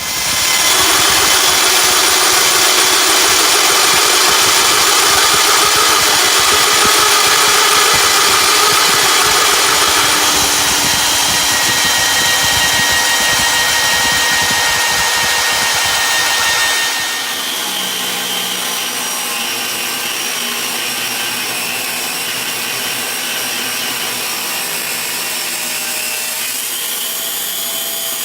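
A power tool working steel tubing, loud and steady, with a few steady tones over a hiss. About 17 seconds in it drops to a lower but still steady level.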